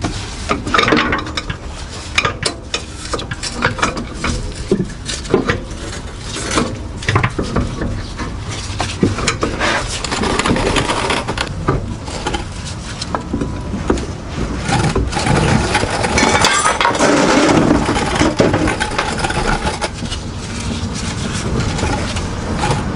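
Irregular metal clanks, knocks and scrapes as a 2009 Subaru Outback's drive shaft is worked loose by hand and maneuvered out from under the car, the tight fit making it bump against the surrounding metal. The knocking is busiest a little past the middle.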